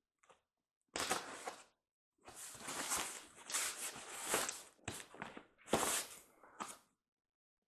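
A cardboard shipping carton being handled and its packing tape slit open: scraping and rustling noises in several bursts, one short burst about a second in, a longer stretch through the middle, then three shorter ones near the end.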